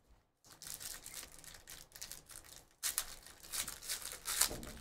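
Trading cards and pack wrappers being handled: a papery rustling and scraping, with louder swishes about three seconds in and again near the end.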